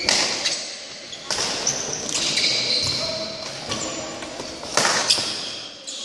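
Badminton rally on a wooden sports-hall floor: sharp racket strikes on the shuttlecock, at the start, about a second in and twice near five seconds, with short high squeaks of court shoes between them, echoing in the hall.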